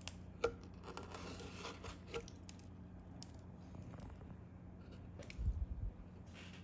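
Faint scattered clicks and small handling sounds over a steady low hum, with a few soft low thumps about five and a half seconds in.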